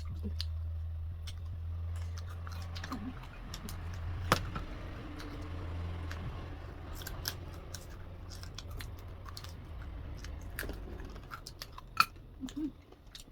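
Close-miked chewing of food, with scattered sharp clicks and taps, two louder ones about four seconds in and near the end. A low steady hum lies under the first half and fades out.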